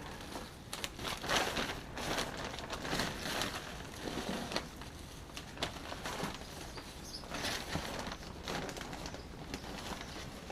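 Repeated scraping and rustling of soil being spread and worked around newly planted bushes, in irregular strokes about once a second.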